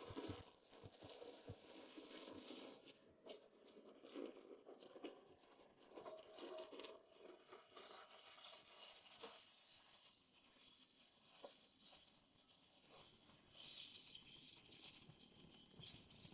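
Faint rustling and crunching with scattered small crackles, and spells of hiss in the first few seconds and again near the end.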